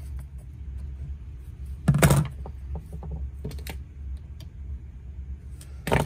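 Handling noise of a rubber fuel return line being pushed onto a chainsaw carburetor's fitting: creaking and rubbing, with one loud handling noise about two seconds in and scattered small clicks after it.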